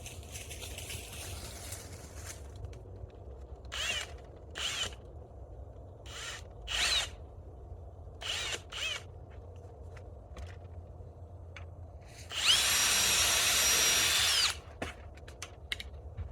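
Power drill in five short trigger pulls, each a brief rising whine, then one longer run of about two seconds near the end that spins up, holds steady and winds down, drilling into the trellis tubing.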